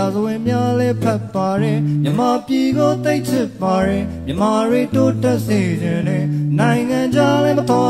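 Man singing a Burmese song, accompanying himself on acoustic guitar over held low bass notes.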